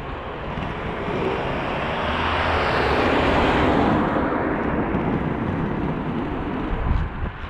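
A vehicle passing, its road noise swelling to a peak a few seconds in and then fading away, over the steady low rumble of inline skate wheels rolling on asphalt. A short knock near the end.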